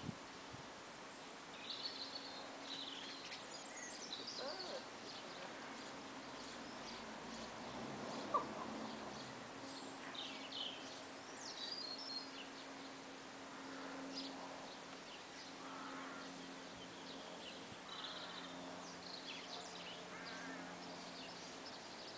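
Small songbirds chirping and singing on and off in the background, faint, with a steady low hum underneath.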